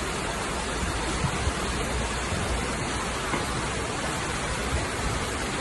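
Steady rushing, hissing noise of heavy rain and floodwater, even throughout with no breaks.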